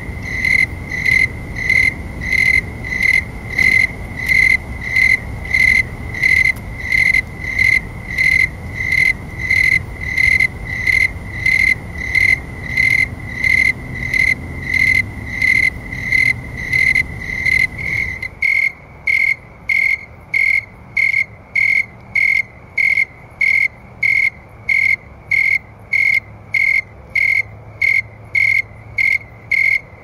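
Snowy tree crickets (Oecanthus fultoni) chirping in a steady, even rhythm of about two clear, high chirps a second. The rate is set by the air temperature of around 70°F. A low background rumble drops away a little over halfway through, while the chirping carries on unchanged.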